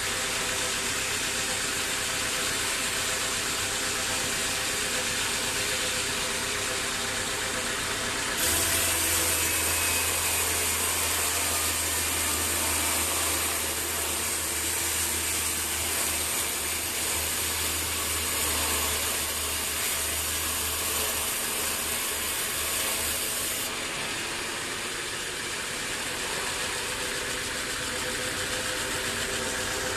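Sawmill machinery running steadily, an engine-like drone. From about 8 seconds in until about 24 seconds in, a louder high hiss and a low hum join it, then it drops back to the steady drone.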